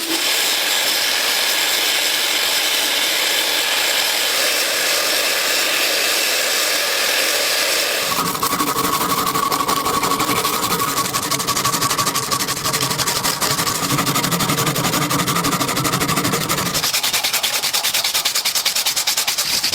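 Small power tool working on metal parts: a steady gritty hiss, joined about eight seconds in by a motor whine with a lower hum. The whine drops away near the end, leaving the hiss alone.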